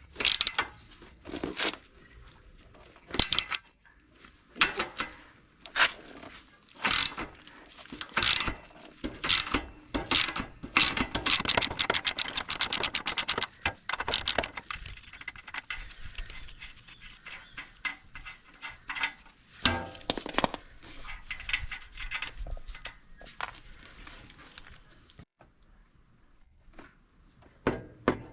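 Hand tools working on a motorcycle's rear swingarm: scattered metallic clinks and knocks, with a ratchet wrench clicking fast for a few seconds midway.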